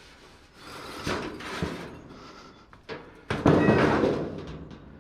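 Scrap items being handled and slid around: scraping and rubbing noises, the loudest about three and a half seconds in.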